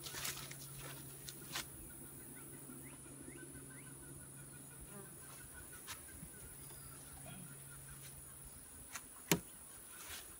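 Quiet outdoor ambience: a steady high drone and a low hum that fades out near the end, with scattered light clicks and one sharp click shortly before the end.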